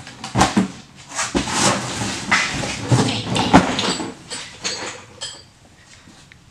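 Cardboard box and workshop parts being handled: a run of rustling, knocks and clatter with a couple of short squeaks, dying down near the end.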